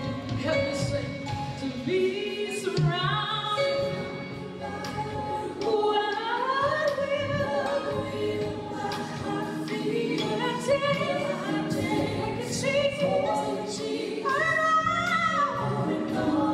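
Live gospel music: a woman sings sliding, ornamented runs with backing singers, over a band of bass guitar and drums, heard from the audience.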